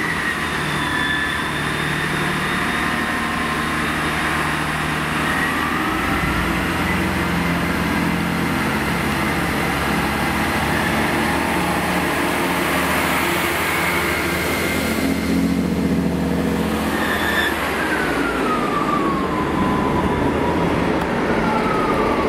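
Transport for Wales Class 158 diesel multiple unit running past along the platform and drawing away, its diesel engines droning steadily. A thin high whine glides up and down above the engine note and slides downward near the end.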